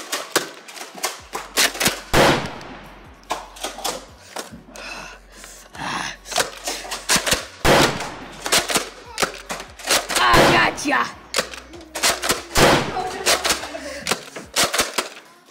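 Nerf dart blaster fired again and again: a long, uneven run of sharp plastic snaps and clacks that ends with the magazine empty.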